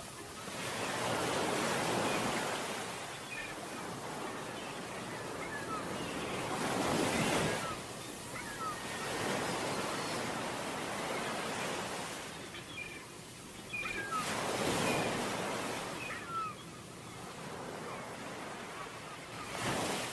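Sea waves breaking on a beach, each wash swelling and fading every few seconds, with a few faint short high chirps over the surf.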